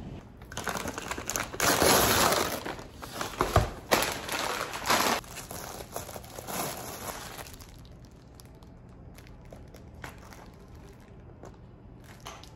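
Plastic cling wrap crinkling and crackling as it is pulled off a takeout food container, loud for the first several seconds, then dropping to faint rustles.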